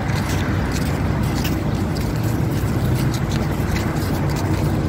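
Steady low rumble of city street traffic mixed with wind buffeting a phone microphone, with a few faint clicks of the phone being handled.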